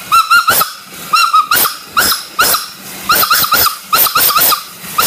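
A dog yapping: short high yelps, often two or three in quick succession, repeating in uneven bursts.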